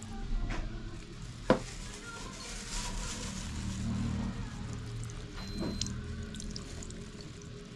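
Background music with a sharp knock about a second and a half in.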